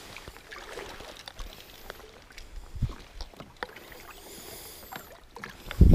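Light water splashing and scattered small knocks from a landing net and a plastic fishing kayak in shallow river water, with a stronger low thump about halfway and a heavy low thump near the end.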